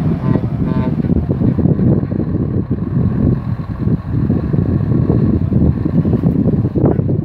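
Scania truck with a loaded trailer driving slowly past at close range, its diesel engine running under heavy wind buffeting on the microphone.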